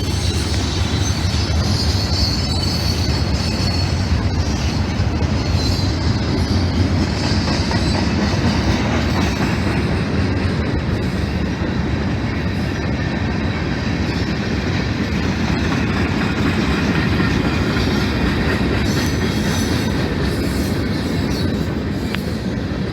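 Railroad cars rolling steadily past, with wheels clattering on the rails and a high wheel squeal through the first half.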